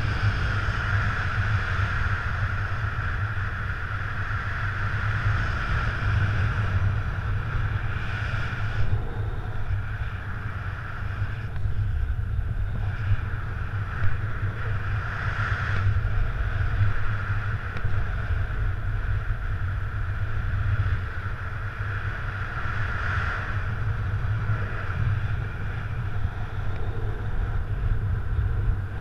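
Wind buffeting a paraglider harness-mounted camera's microphone in steady soaring flight: a constant low rumble with a hiss that swells and fades every several seconds.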